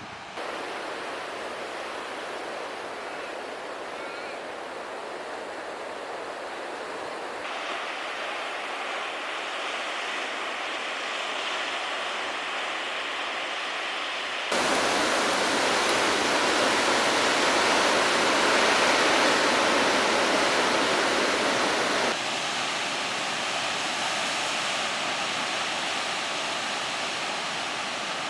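Steady outdoor rushing noise, with no distinct events, that jumps abruptly in level and character three times; it is loudest and brightest through the middle stretch.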